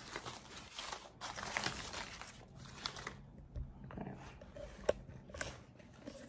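Paper banknotes rustling and crinkling as hands rummage through a pile of crumpled dollar bills. The rustling is densest for about the first three seconds, then fainter, with a few light ticks.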